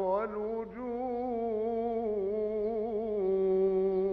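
Background music: an Islamic nasheed, a voice holding long wavering notes without words over a steady low tone.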